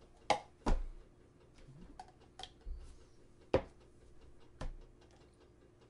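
A few sharp knocks and clicks of cups being handled and set down on a tabletop: two in the first second, the loudest, another about three and a half seconds in and a softer one about a second later, with small ticks between.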